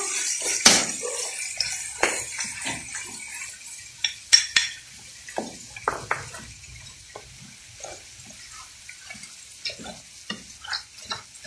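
A wooden spoon stirring crayfish and sauce in a metal pan, with irregular knocks and clatter of spoon and shells against the pan over a faint sizzle. The knocks are louder in the first half and thin out toward the end.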